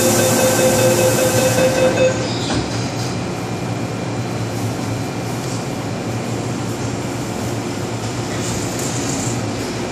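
MTR M-Train door-closing sequence: the warning tone sounds with a hiss for about two seconds, the saloon doors shut with a knock, and then the steady rumble and hum of the metro car follows.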